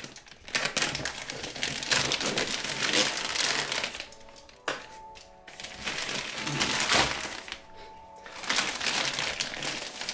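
A plastic courier satchel being ripped open by hand, its plastic crinkling and crackling, with two short pauses about four and a half and eight seconds in.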